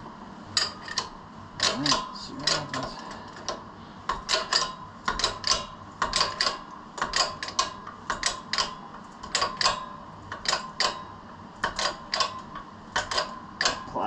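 Irregular sharp clicks and creaks, two or three a second, from a shop press and its clamped wooden jig under load as it pushes on a seized piston in a 1960 John Deere 1010 engine block. A faint steady hum runs underneath.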